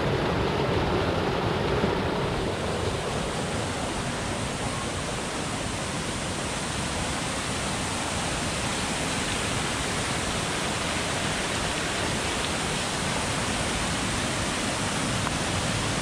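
Steady rush of a small creek tumbling over rocks and low cascades.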